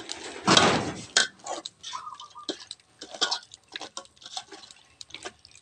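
Metal spoon clinking and scraping against a metal pot as chunks of pork are stirred, in a run of irregular clicks and knocks. A louder, rougher scrape comes about half a second in.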